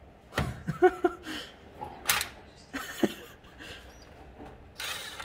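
Scattered knocks and handling noise from tools working in a truck's engine bay, with one sharp knock about two seconds in and a smaller one about a second later, and brief faint voices near the start.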